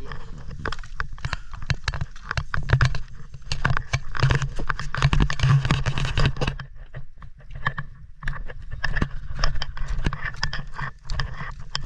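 Footsteps crunching and scraping over a rocky shore, a dense irregular clatter of stones under the feet, with a steady low rumble underneath.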